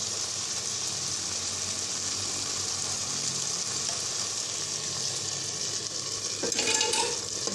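Boiled-down beef sizzling in an open pressure cooker as it begins to fry dry, its cooking water having fully evaporated. The sizzle swells louder near the end as oil is poured in.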